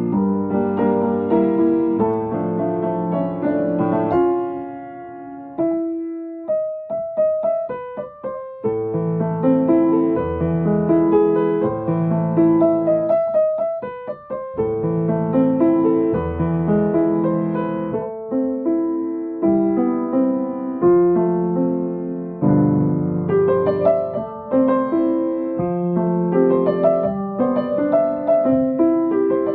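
Piano playing a medley arrangement of chime tunes, a melody over chords. About five seconds in, the lower accompaniment drops away for a few seconds of sparse single notes before the full chords come back.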